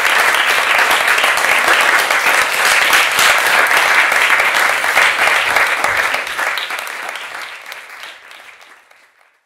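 Audience applauding, a dense patter of many hands clapping that holds steady and then fades out over the last three seconds.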